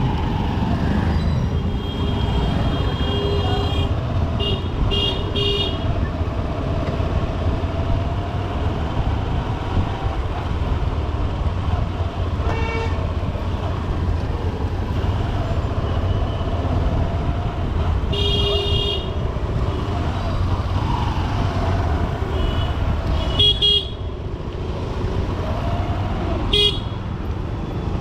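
Heavy city traffic from a moving Honda SP125 commuter motorcycle: a steady low rumble of engine and wind, with other vehicles' horns honking repeatedly: a longer honk about two seconds in, two quick beeps near five seconds, and more honks around twelve, eighteen, twenty-three and twenty-six seconds.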